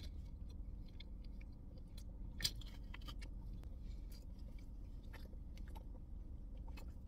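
Quiet chewing of a mouthful of bulgogi beef and rice, with soft scattered mouth clicks and one sharper click about two and a half seconds in.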